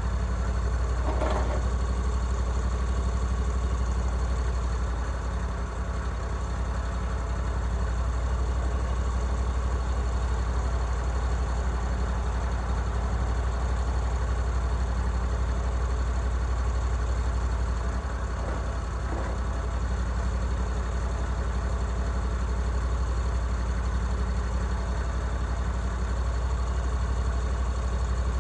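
Gasoline engine of a Woodland Mills HM136MAX portable bandsaw mill running at a steady speed.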